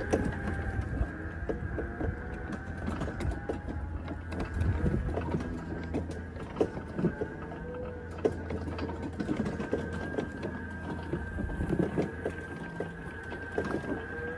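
Ryobi 48V battery riding lawn mower driving along, its electric motors giving a steady high whine over a low hum, with scattered knocks and rattles from the machine.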